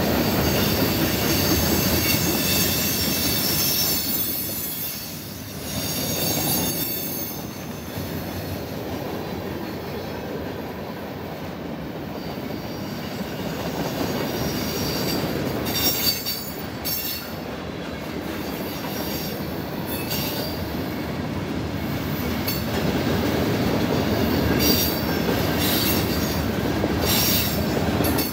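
Freight cars of a passing train rolling by with a steady rumble of steel wheels on rail and high-pitched wheel squeal. Short sharp squeals or clanks come repeatedly through the second half.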